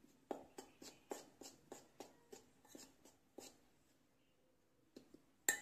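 Spoon stirring a dry flour mix in a stainless steel bowl, scraping against the metal in faint, even strokes about three times a second, stopping about three and a half seconds in. A louder metallic clink comes near the end.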